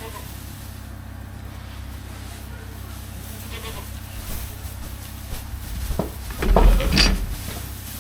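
Goats bleating in a pen. About six seconds in come a few loud knocks and clatter with a heavy thump.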